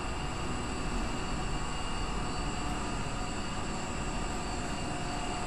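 Steady drone of a ship's running machinery heard below deck: an even low rumble with a few faint steady whining tones above it.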